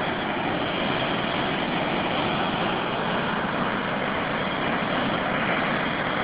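Steady rushing of a Pyrenean mountain river in flood, churning through turbulent white water with a low rumble beneath. The torrent is strong enough to shift rocks and carry along tree trunks.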